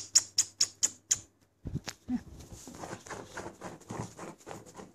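Beagle puppies' claws clicking and scrabbling on a tile floor. A quick run of sharp clicks comes in the first second, a thump near two seconds in, then softer scratching and shuffling.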